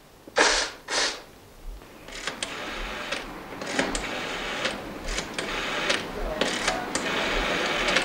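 A woman blows her nose into a tissue, two short loud blows, then a rotary telephone dial is turned and runs back several times with a string of sharp clicks.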